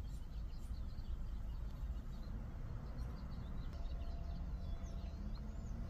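Faint birds chirping over a steady low rumble.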